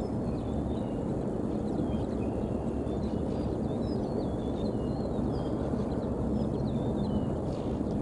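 Outdoor ambience: a steady low rumble, with small birds calling in short whistled notes, several of them dropping in pitch, scattered throughout.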